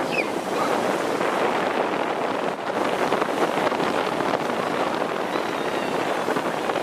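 Steady rushing noise of wind on the microphone mixed with breaking surf.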